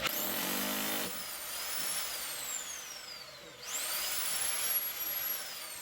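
Electric concrete saw's motor spinning up with a high whine, then winding down with a falling pitch. It does this twice, the second spin-up coming a little under four seconds in.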